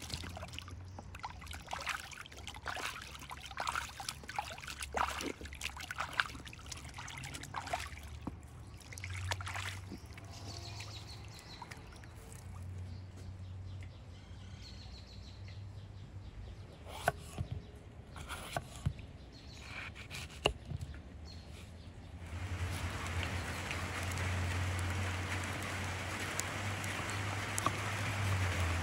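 Water splashing and sloshing as bell peppers are tipped into a basin and washed by hand, then a few sharp knife strikes on a wooden cutting board. About two-thirds of the way through, a steady hiss of rain sets in and lasts to the end.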